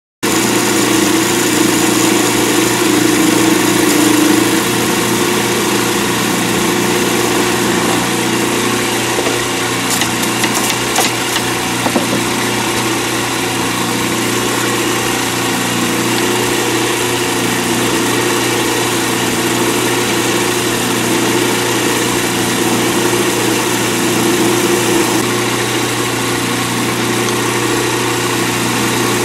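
Lathe running steadily while a skew chisel shaves a spinning acrylic resin pen blank: a constant motor hum under the hiss of the cut, with a few faint clicks about ten to twelve seconds in.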